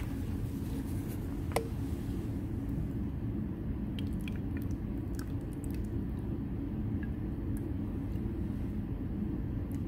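Steady low rumble of room noise, with one light click about one and a half seconds in and a few faint ticks a little later while water is poured into a graduated cylinder.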